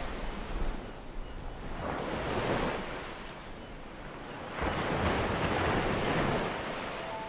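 Ocean surf breaking on a rocky shore, swelling twice, about two seconds in and again around five seconds in, with wind rumbling on the microphone.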